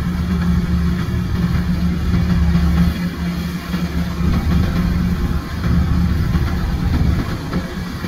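Kubota tracked rice combine harvester's diesel engine running steadily as the machine cuts and threshes rice, a constant low hum with a few brief dips in level.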